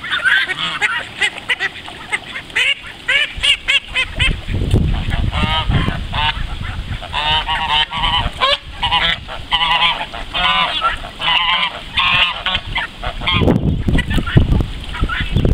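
A flock of call ducks quacking loudly and over one another in rapid runs of short, high calls. A low rumble comes in about five seconds in and again near the end.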